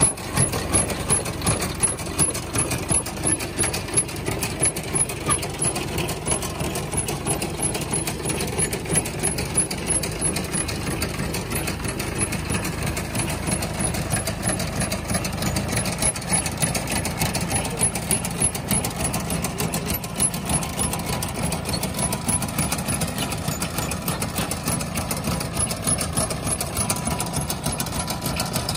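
Tractor engine running steadily while a Fahr self-loading hay wagon's pickup and feed mechanism clatter rapidly, taking in hay from the windrow.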